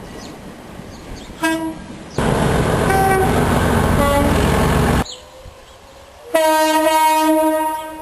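Train horn sounding: a brief toot about a second and a half in, a loud noise lasting about three seconds that starts and stops abruptly, then a longer single-note horn blast held for about a second near the end.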